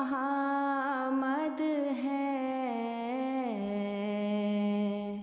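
A solo voice singing a naat, an Urdu devotional poem, drawing out the word 'Ahmad' in a winding melody, then holding one long lower note from about three and a half seconds in that fades near the end.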